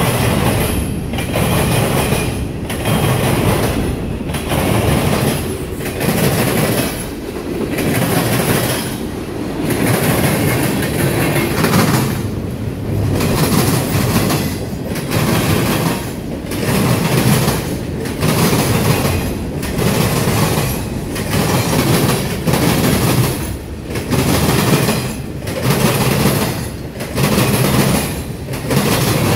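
Freight cars of a long train rolling past, their wheels banging over a railroad diamond crossing in a steady clatter that swells about every second and a half.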